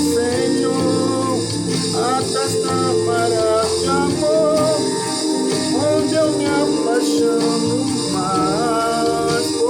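Portuguese-language contemporary worship music: a sung melody over sustained chords.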